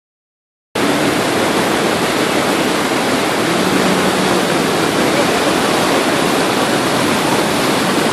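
Waterfall: a steady, dense rush of falling water that starts suddenly just under a second in, after a moment of silence, and holds an even level.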